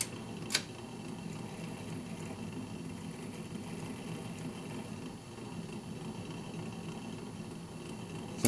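1951 RCA Victor 45-EY-4 record changer running on its freshly oiled AC motor: a steady low mechanical rumble that wavers slightly, with one click about half a second in. The changer is not behaving right.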